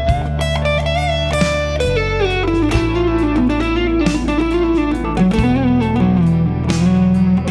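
Electric guitar playing a single-note lead solo on the D major pentatonic scale, with slides between notes, over a backing track of bass, drums and chords cycling A, E minor, G, D.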